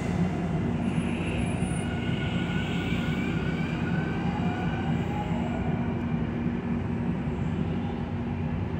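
Trinity Railway Express diesel locomotive drawing its commuter train in, a steady low engine drone. Faint high squeals come and go in the first half.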